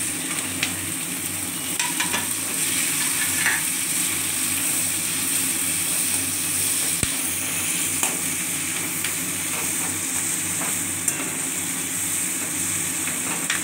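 Chopped onion and capsicum sizzling in hot oil in a stainless-steel wok over a high flame. A perforated metal spoon stirs them, scraping and clicking against the pan.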